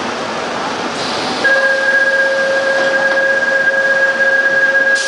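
Korail commuter train's door-closing buzzer: a steady two-pitch tone that starts about a second and a half in and holds for about four seconds while the doors close, over a steady hiss from the standing train. A short burst of air hiss comes near the end as the doors shut.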